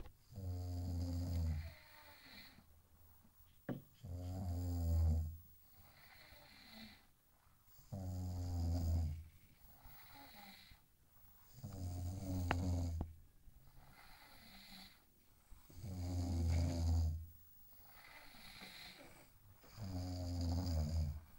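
A person snoring loudly and regularly: six deep, rattling snores, one about every four seconds, each lasting about a second and a half, with quiet breathing between.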